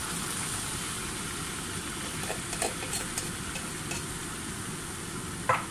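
Pork sizzling in a frying pan as canned coconut milk is poured in and stirred, with a metal spoon clicking against the pan a few times in the middle and a sharper knock near the end.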